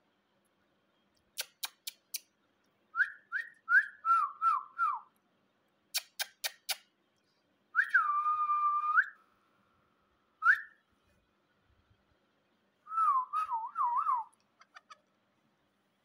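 Clear whistled notes in short runs of quick rising and falling calls, with one long held note near the middle, and sharp clicks in small groups between them.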